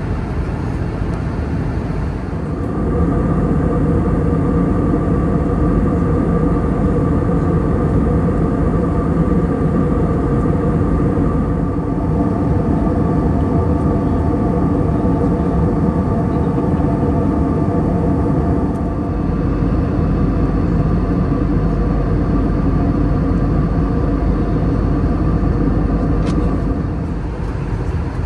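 Airbus A320neo cabin noise in flight: a steady rush of airflow and engine noise from the CFM LEAP-1A engines. A set of steady engine tones hums over it from about two seconds in, fading out near the end.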